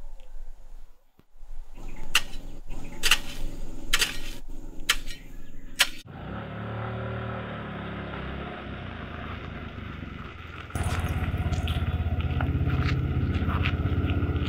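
A hoe striking the soil about six times, each a sharp chop, then an auto-rickshaw's small engine running steadily. The engine jumps louder about eleven seconds in.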